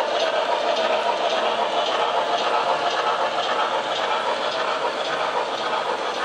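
HO scale model train rolling along the layout track: a steady mechanical whirr with the clatter of small wheels on rail and faint regular clicking.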